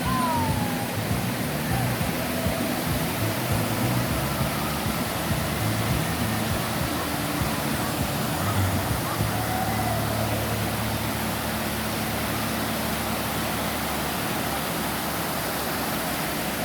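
Steady rush of water from a small waterfall, with a few faint voices in the first half.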